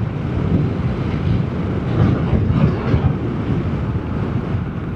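Vespa GTS 300 scooter's single-cylinder engine running steadily while riding, with wind rushing over the microphone.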